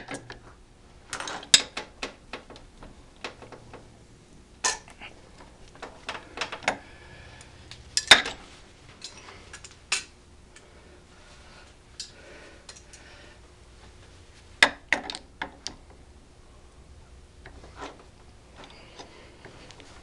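Metal hand tools clinking and knocking as an armorer's barrel nut wrench and a torque wrench are handled and fitted onto an AR-15 barrel nut, in scattered sharp knocks, the loudest about eight seconds in.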